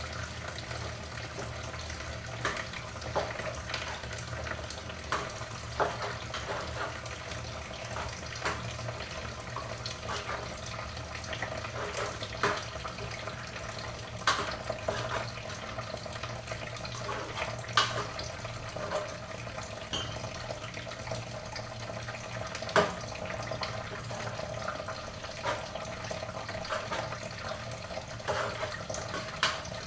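Kitchen tap running steadily into a sink, under a low steady hum. Scattered short clinks come from a spoon knocking against steel pots as they are stirred.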